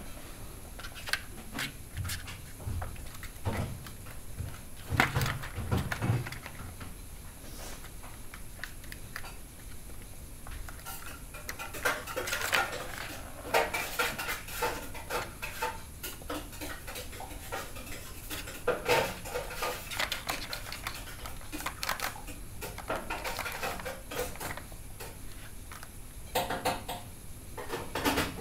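Catit Play Circuit plastic track toy rattling and clattering as a kitten bats at it: the ball rolling in the track and paws knocking the plastic, in irregular clusters of clicks with a few soft thumps in the first several seconds.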